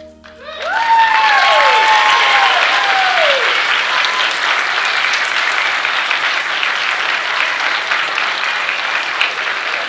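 Audience applause breaking out about half a second in, with a few voices whooping in rising-and-falling cheers over the first three seconds. The clapping stays loud and steady, then thins toward the end into more separate claps.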